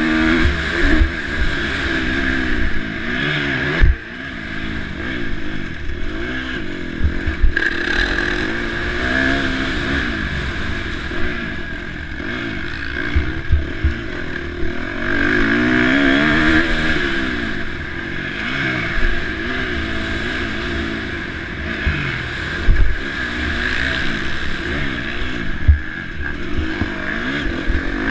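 KTM SX-F 350 single-cylinder four-stroke motocross engine racing, its revs rising and falling over and over as the throttle is worked through the gears, with wind hiss and scattered short low thuds.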